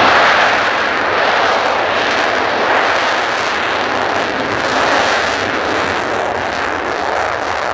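Mitsubishi F-2 fighter's F110 turbofan engine running loud and steady as the jet moves along the runway close by, with a dense rushing jet noise that swells right at the start.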